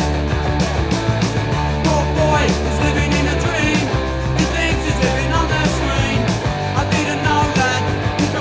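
Punk rock recording playing: a band with electric guitar, bass and drums, at a steady loud level.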